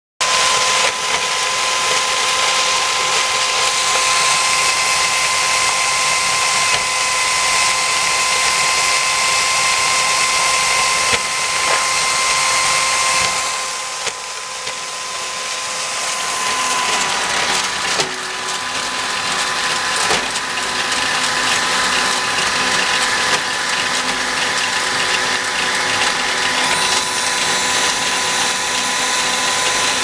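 Electric drill driving the perforated drum of a WK250 walnut washing machine. The motor gives a steady whine, dipping briefly about halfway, over the clatter of walnuts tumbling in the wet drum.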